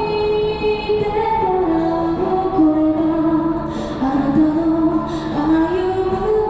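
Background music: a woman singing a slow melody of held notes that step up and down over an accompaniment.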